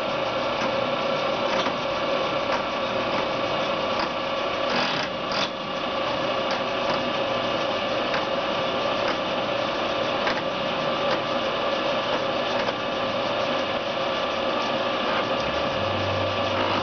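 A 17" x 40" Celtic engine lathe running under power with no cut: a steady mechanical whine of gears with one strong mid-pitched tone and scattered light clicks. A deeper hum joins near the end.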